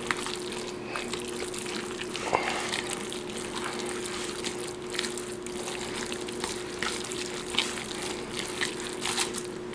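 Fork stirring mayonnaise-coated noodles and tuna in a plastic bowl: wet squishing with irregular small scrapes and clicks, over a steady low hum.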